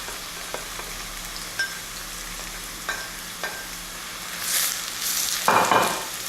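Browned onions frying in oil in a pan with a steady sizzle and a few light utensil taps. From about four seconds in, louder stirring and scraping as the mixture is turned over.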